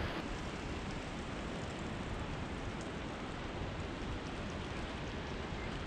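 Steady rushing of a mountain river: an even hiss with no separate events.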